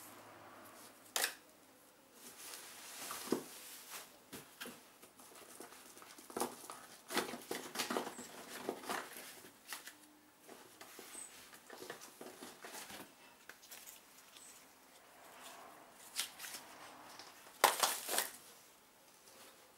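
Handling noise as cardboard-tube fireworks are picked up and set down on a pile: scattered rustling and light clicks and knocks, with the loudest knocks near the end as a bundle of tubes is laid down.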